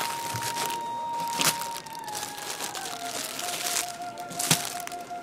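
Plastic bread bags crinkling as loaves of sliced bread are handled, with two sharp knocks about a second and a half and four and a half seconds in. A steady tone runs underneath and drops in pitch about two seconds in.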